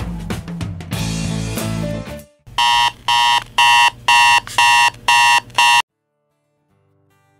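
Digital alarm clock beeping loudly, seven beeps at about two a second, cut off suddenly when it is switched off. Before it, background rock music with guitar ends about two seconds in. Faint acoustic guitar music starts near the end.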